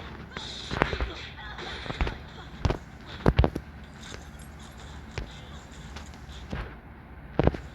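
A series of sharp, irregularly spaced knocks and taps, about ten in all, the loudest a little over three seconds in.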